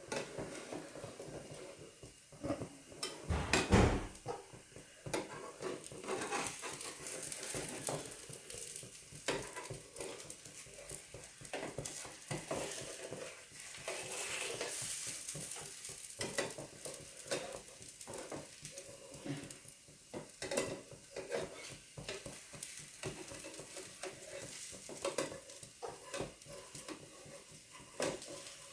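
Semolina and rice-flour batter sizzling on a hot oiled pan, with frequent taps and scrapes of a utensil against the pan and a louder knock about three to four seconds in.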